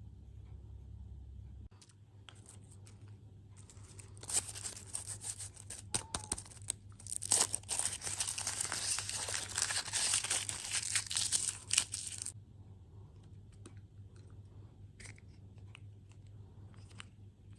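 Plastic food packaging being torn open and crinkled for several seconds, with faint clicks and rustles before and after.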